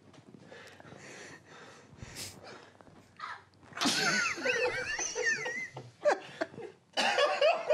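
Stifled, wheezing, high-pitched laughter that breaks out about four seconds in after a hush and lasts about two seconds, with more laughing starting near the end.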